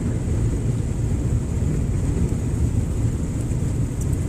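A vehicle driving slowly through deep floodwater on a road, heard from inside the cab: a steady low rumble of engine and water against the underbody.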